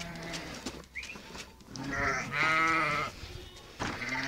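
Sheep bleating: one long, quavering bleat about two seconds in.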